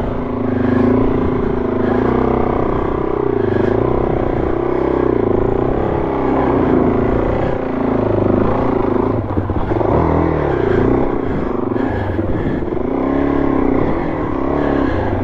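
Trail motorcycle engine revving up and down under heavy load as the bike climbs a steep, soft-sand bank out of a dry creek bed. The pitch keeps rising and falling with the throttle.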